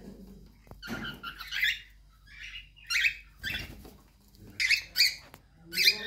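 Cockatiel growling at a person: repeated short, harsh hissing bursts with short pauses between them, the defensive warning noise of an annoyed cockatiel.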